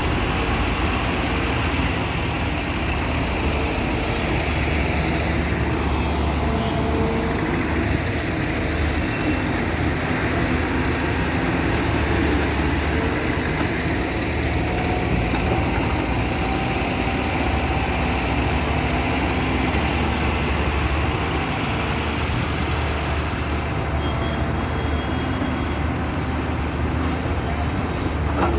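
Diesel engine of heavy machinery, a JCB backhoe or a truck, running steadily with a deep, even rumble.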